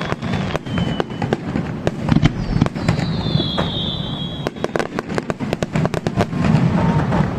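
Fireworks display: rapid sharp bangs and crackling from bursting shells over a low rumble, with a whistling tone that falls in pitch about three seconds in.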